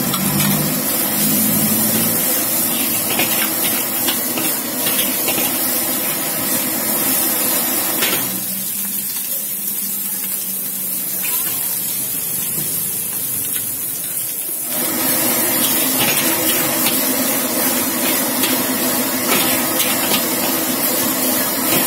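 Egg frying in hot oil in a steel wok over a gas burner: steady sizzling and burner noise, with the metal spatula scraping and tapping against the wok. The sizzle drops noticeably for several seconds in the middle, then returns at full strength.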